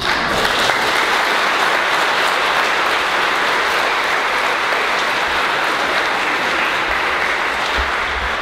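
An audience applauding, starting suddenly and holding steady before tailing off near the end.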